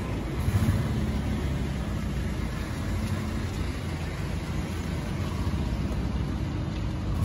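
A vehicle engine running with a steady low rumble, heard from on board.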